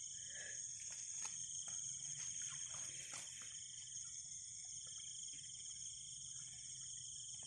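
A steady chorus of crickets and other night insects, trilling at several high pitches at once, with faint scattered rustles and clicks from a hand working in wet grass and mud.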